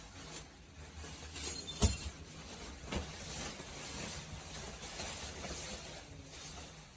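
Rustling of a nylon puffer jacket as it is pulled on over the arms and shoulders, with a sharp click about two seconds in and smaller ones just before and about a second later.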